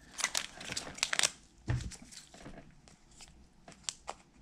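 Crinkling and crackling of a foil trading-card pack being handled, with a soft thump just under two seconds in and a few small clicks; near the end scissors snip into the pack.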